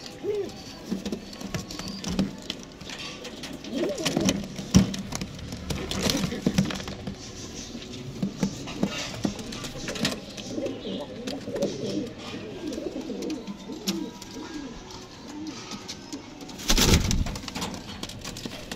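Chinese owl pigeons cooing in low, rolling, repeated calls. Near the end there is a brief, loud scuffling burst.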